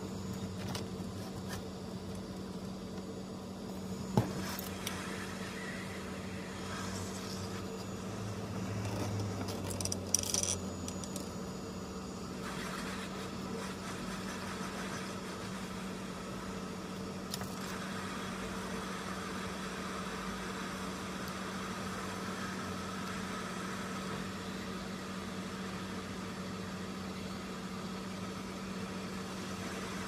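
A steady machine hum with a constant low tone. A sharp click comes about four seconds in, and the sound gets louder and rougher for a few seconds around the ten-second mark.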